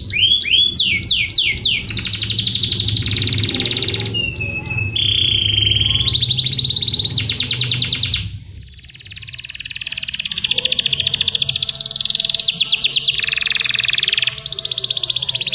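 Domestic canary singing a long song made of fast trills and rolls, each phrase one note repeated rapidly before switching to the next, with a short pause about halfway through.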